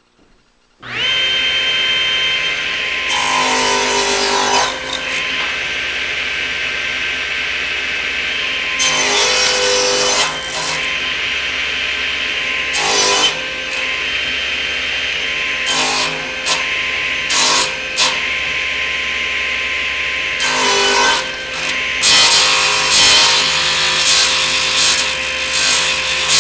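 Table saw switched on about a second in, running with a steady whine. Its blade trims a stack of clamped wooden biscuit blanks as they are turned against it, so the cutting noise rises and falls in repeated bouts.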